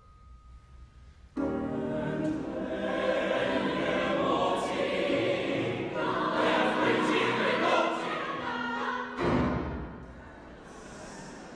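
Mixed choir singing in a reverberant church. The voices come in together about a second in after a brief hush, sing densely for several seconds, and break off on a sudden loud accent near the end that rings away in the room.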